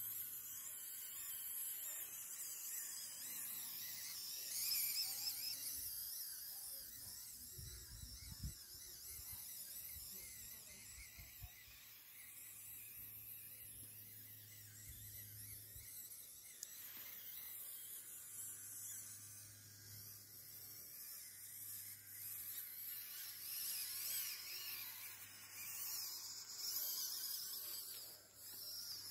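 Small electric drive motor and gearbox of a 3D-printed 1/16-scale RC tractor whining as it crawls through long grass. The whine wavers up and down in pitch, over a steady low hum.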